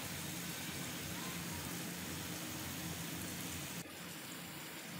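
Oil sizzling steadily as mini singaras deep-fry in a pan, dropping a little quieter about four seconds in.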